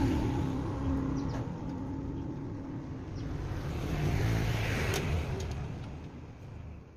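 An unseen motor vehicle's engine running, swelling about four seconds in and then dying away near the end, with a few sharp clicks along the way.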